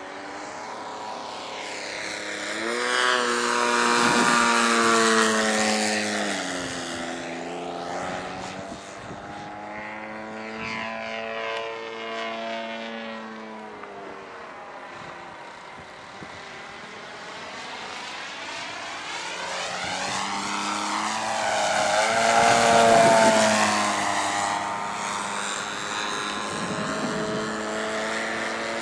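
Engine and propeller of a radio-controlled Extreme Flight Extra aerobatic model plane, the note rising and falling in pitch and loudness as the throttle changes through the manoeuvres. It swells loudest on two close passes, about 4 and 23 seconds in.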